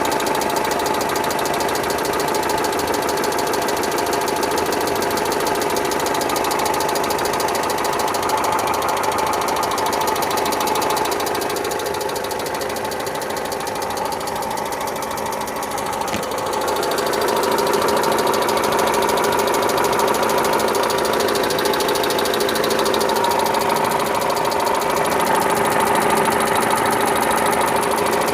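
Kia Spectra's warm four-cylinder engine idling with a knock, which the owner calls a foreign noise in the engine. It goes a little quieter for a few seconds midway, then comes back up.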